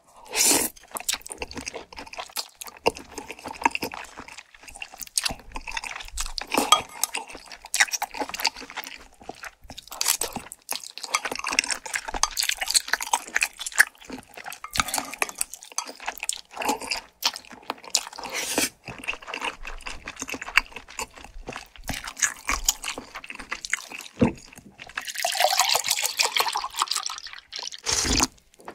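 Close-miked wet mouth sounds of eating spicy tteokbokki with thick Chinese glass noodles: irregular sticky chewing, lip smacks and slurps, with a longer continuous slurp near the end.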